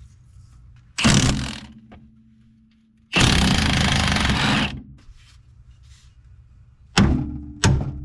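Tools working on the front control arm bolts under a car. There is a sharp ringing metal clank, then a loud rough burst about a second and a half long, then three sharp ringing metal clanks near the end.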